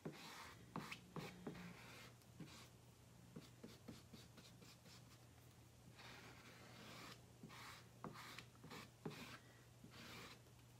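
Faint scraping and swishing of a squeegee spreading chalk paste across a silkscreen transfer on a chalkboard, in short irregular strokes with small ticks, over a steady low hum.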